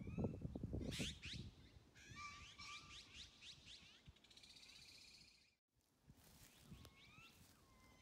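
Azure-winged magpies calling: short squeaky calls that slide up and down, a quick run of chirps about two to three seconds in, and a harsh buzzing call about four seconds in. A low rumble on the microphone is the loudest sound in the first second, and the sound drops out briefly about five and a half seconds in.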